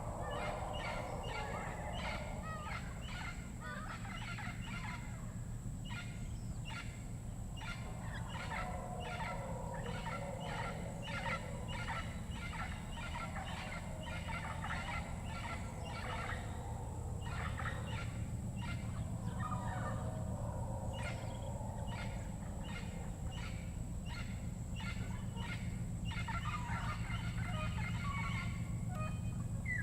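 Tropical rainforest ambience: a dense chorus of jungle birds giving rapid, repeated chattering calls, with a steady high-pitched drone and a steady low rumble underneath.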